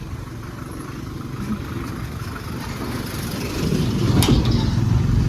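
Motor vehicle engine running on a rough dirt road, growing louder about three and a half seconds in, with a sharp click a little after four seconds.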